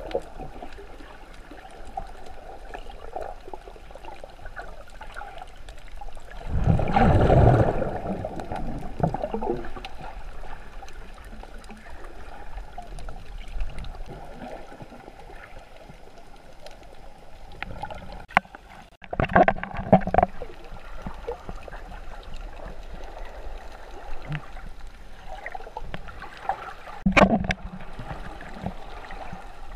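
Water moving around a microphone held underwater: a steady muffled wash, with three loud surges of water noise, about a quarter of the way in, about two-thirds of the way in, and near the end.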